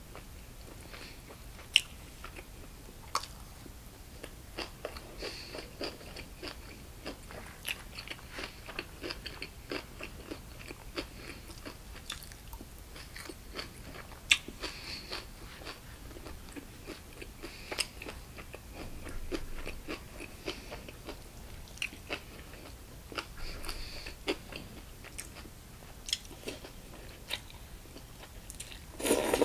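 Close-miked chewing and crunching of food, with wet mouth sounds and scattered sharp clicks, typical of an eating-show recording. Near the end there is a short, louder slurp of noodles.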